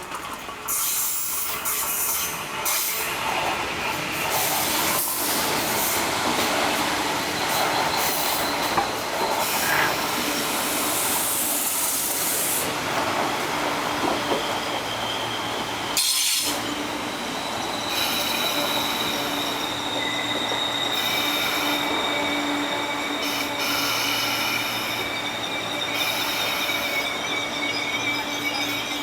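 Diesel-hauled through train of 25Z passenger coaches running through a station without stopping: a steady rushing rumble of wheels on rail that swells suddenly about a second in. From about 18 seconds a thin, steady high squeal of the wheels rides over it.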